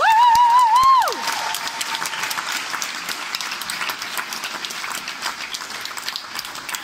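A held, wavering note with overtones slides down in pitch and stops about a second in, followed by an audience applauding with steady clapping.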